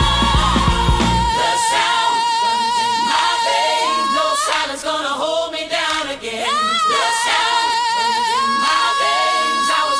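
Soul song breakdown: the drums and bass drop out about a second in, leaving a lead voice holding long notes with vibrato over choir harmonies. A quick vocal run comes near the middle, and a higher held note near the end.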